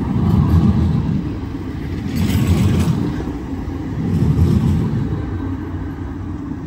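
Croydon Tramlink tram passing close at low speed: a low rumble of wheels on rail that swells and eases about three times, with a brief hiss a little over two seconds in.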